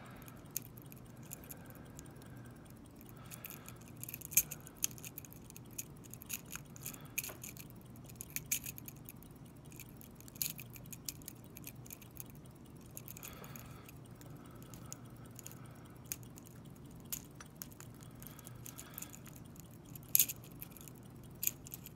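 Faint metallic clicks and scrapes of a Southord pick pen's half-snowman tip working the pin stack inside an old Hurd padlock held under tension. The clicks are irregular, some sharper than others, over a low steady hum.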